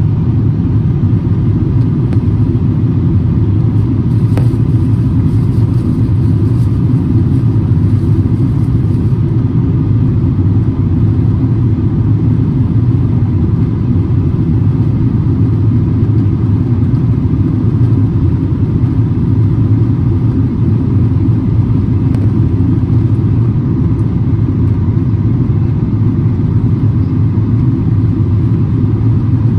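Steady low drone of an airliner in flight heard from inside the cabin: engine and airflow noise, even and unchanging.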